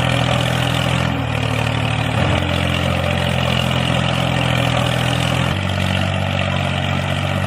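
A motor or engine running steadily with a low, even hum. Its pitch shifts slightly about a second in and again about five and a half seconds in.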